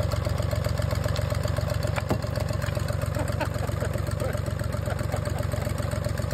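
Volvo Penta 2003 three-cylinder marine diesel idling steadily, with an even, rapid firing beat.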